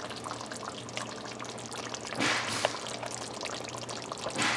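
Curry gravy pouring and dribbling off a spoon back into a pot of pork curry, with two short louder spills of liquid about halfway and near the end.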